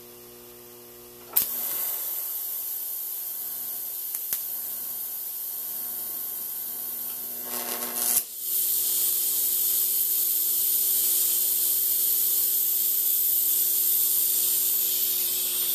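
TIG welding arc on steel, a steady hiss over a low electrical hum: the arc strikes about a second and a half in, stops briefly near the middle, then restarts louder and runs on.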